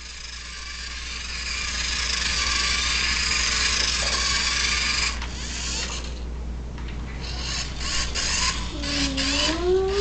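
Small electric motor of a toy RC car whirring steadily for about five seconds, then running in several short start-stop spurts. A baby's voice rises in pitch near the end.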